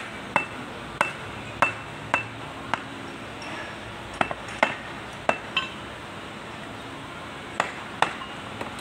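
A steel bar striking the cast front-axle hub housing of a GL300 tractor, knocking it loose from its mounting. About a dozen sharp metal knocks, each with a short ring, unevenly spaced with a pause midway.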